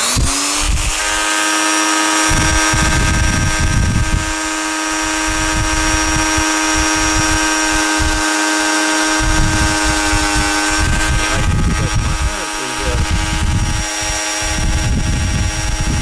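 Dremel rotary tool at speed setting 3 spinning up to a steady whine, then its small abrasive cut-off wheel grinding on and off through thin stranded copper wire clamped in a bench vise.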